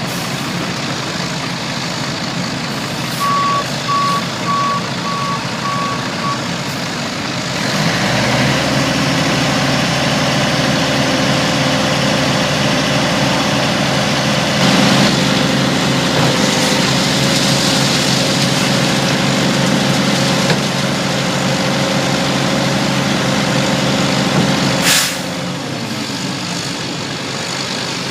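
Caterpillar AP1000D asphalt paver's diesel engine running, with a reversing alarm beeping steadily for a few seconds early on. About eight seconds in, the engine rises to a louder, heavier working note under load. It holds there until a short sharp burst near the end, then drops back to a quieter run.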